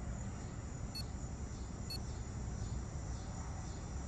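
Two short electronic beeps from a Garmin Forerunner 201 GPS unit as its buttons are pressed, about a second apart, over a steady low outdoor rumble.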